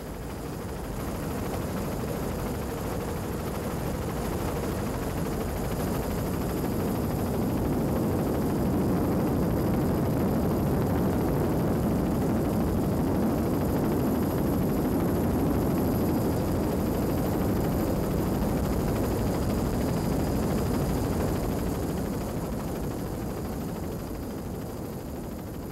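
A steady rushing, roaring noise with no clear rhythm, swelling in over the first several seconds and fading out near the end.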